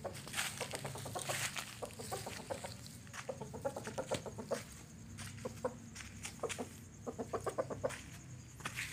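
Young rooster clucking in several short runs of quick, low clucks, the longest run near the end.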